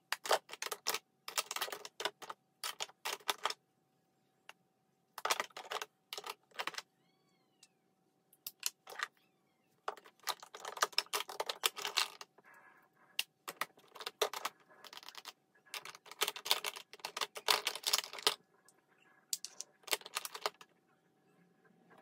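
Plastic makeup compacts and cases clicking and clattering as they are picked up, opened and set down while being rummaged through, in bursts of rapid clicks with short pauses between.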